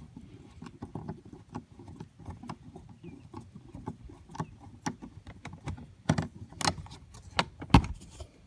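The last screw of a car seat's back cover being undone by hand, with irregular small clicks and scrapes of tool and plastic trim. A few louder knocks come about six to eight seconds in, the sharpest near the end.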